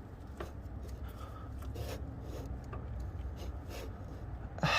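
Faint rubbing and a few small clicks of hands handling parts inside an opened rear differential, over a low steady hum.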